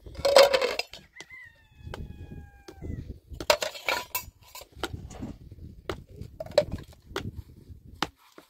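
A rooster crowing about a second in, ending in a long, slowly falling held note. Around it come sharp clinks and knocks of plates and a metal pan being handled and washed.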